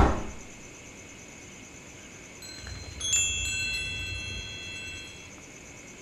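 A hanging chime of small brass bells rings: a faint jingle, then a stronger ring about three seconds in, with several clear high tones dying away over about two seconds.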